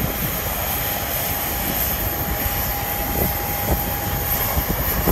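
Steady jet aircraft noise on an airport ramp, with a faint steady whine that comes in about a second in.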